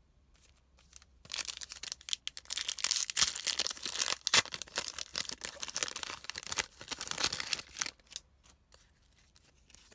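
A trading card pack's wrapper being torn open and crinkled by hand, a dense crackling rustle that starts about a second in and stops near the end.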